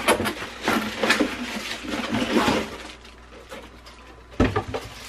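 Plastic packaging crinkling and a cardboard box rustling as parts are pulled out of it, busy for about three seconds and then quieter, with one sharp knock near the end.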